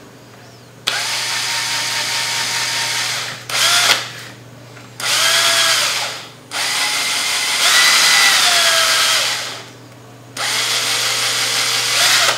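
Bosch GSB 180-LI 18 V cordless impact drill running free with a screwdriver bit in the chuck, in five trigger pulls of one to three seconds each. Its motor and gear whine rises and falls in pitch as the variable-speed trigger is squeezed and eased.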